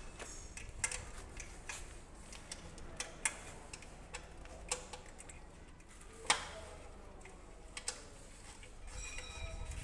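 Scattered metallic clicks and knocks of hand tools and parts being handled during a truck gearbox teardown, about seven sharp ticks with the loudest knock a little past the middle.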